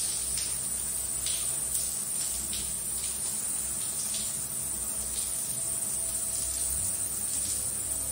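Hands rubbing and kneading a wet golden retriever puppy's fur, a run of soft irregular rustling strokes over a steady high-pitched hiss.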